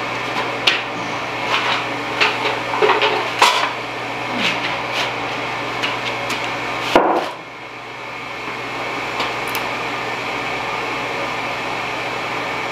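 Knocks and clatter of things being handled and set down over the steady hum of the sawdust stove's inducer blower. The loudest knock comes about seven seconds in, after which the sound dips and then the blower hum builds back up and runs steadily.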